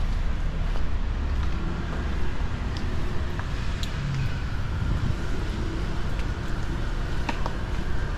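Steady low rumble of road traffic on a town street, with a few faint light clicks.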